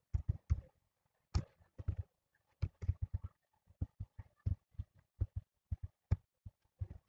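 Computer keyboard keystrokes and mouse clicks, short sharp taps with a dull thud, coming irregularly a few times a second.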